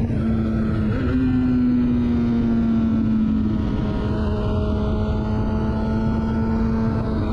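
A 2004 Honda CBR1000RR Fireblade's inline-four engine, breathing through a Jardine titanium exhaust, running at steady cruising revs on the highway. About a second in the pitch steps up slightly, then slowly eases down, over a steady rush of wind and road noise.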